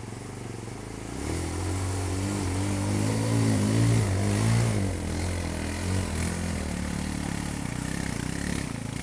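Quad bike engine revving up about a second in and running hard with a wavering pitch, then settling to a steady run.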